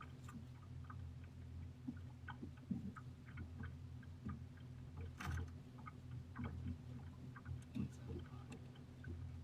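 A boat motor running with a steady low hum, with scattered small clicks and taps over it, the loudest about five seconds in.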